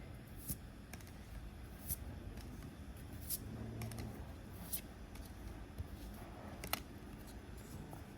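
Pokémon trading cards being handled one at a time, each giving a short sharp flick or snap, five in all, roughly every second and a half.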